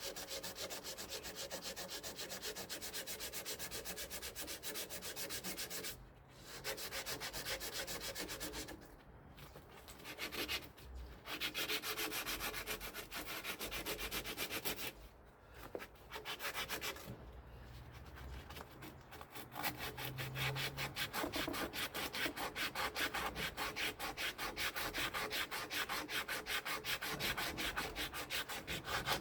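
Rust being abraded off a corroded metal part in rapid, rhythmic scrubbing strokes, stopping briefly several times.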